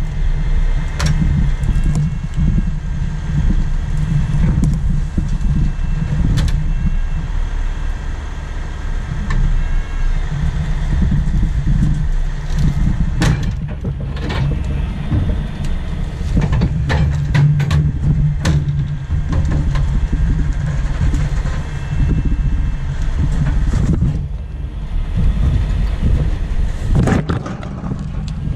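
Heavy rotator tow truck's diesel engine running steadily to drive its hydraulic winches while the wrecked truck is pulled, with a faint whine on top. Occasional sharp knocks and clanks come through, several of them.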